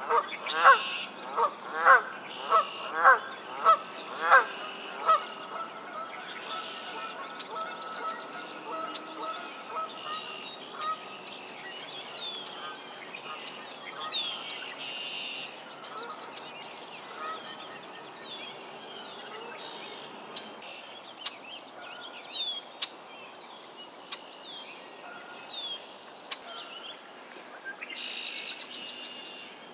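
A Canada goose honks repeatedly, about nine loud honks a little over half a second apart, stopping about five seconds in. A steady low trill follows for several seconds. Small songbirds chirp and whistle throughout the swamp chorus.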